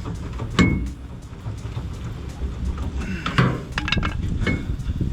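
Hand tools and shock absorber hardware clanking on the truck: a sharp metal knock with a brief ring about half a second in, then a cluster of clicks and knocks a little past three seconds, and one more small ringing knock near the end.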